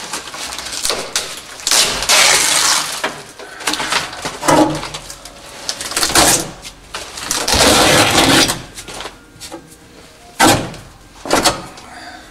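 Old, rotted headliner and roof insulation of a 1965 Corvair being ripped down by hand: a run of rough tearing and crackling rips, one after another.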